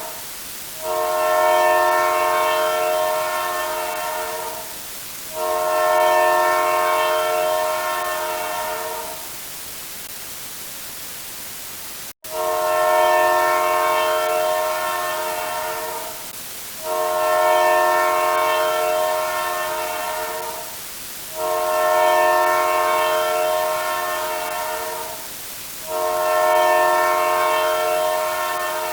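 A multi-tone horn sounding in long blasts of about four seconds each, a chord of several steady pitches, repeated six times with short breaks and one longer pause near the middle; each blast fades a little as it goes.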